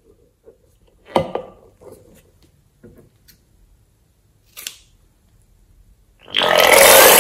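A sharp click about a second in and a short snip of scissors cutting a balloon's neck a little after four and a half seconds. Near the end the balloon is squeezed and its yellow filling squirts out into a bowl of slime with a loud, noisy sputter, the loudest sound here.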